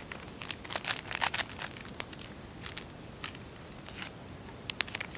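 Plastic packaging crinkling and rustling in the hands, a run of short, irregular crackles, as a bag is handled and opened.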